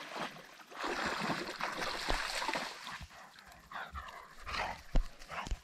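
A dog splashing through shallow creek water, then a few faint high whines a few seconds in, with a single sharp knock near the end.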